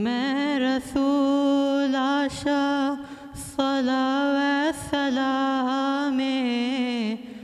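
A teenage boy's solo voice singing a madhaha, a Dhivehi Islamic devotional song, into a microphone: long held notes with melismatic turns, in phrases broken by short breaths.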